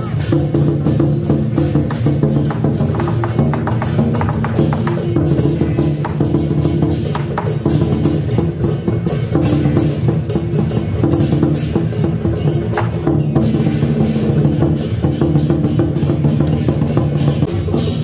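Taiwanese temple-procession music: rapid percussion strikes, woodblock-like clacks and drums, over steady sustained tones, with no break.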